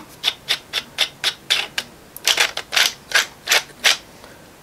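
A 3D-printed plastic knob being screwed onto its shaft on a printed watch frame, clicking as it is turned: about fifteen sharp clicks, roughly four a second, stopping near the end.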